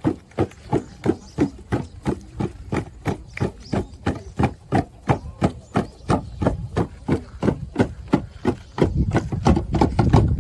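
Drum beaten in a steady, fast, even rhythm of about three to four strokes a second, accompanying a dance. From about nine seconds in, a denser, louder low sound builds under the beats.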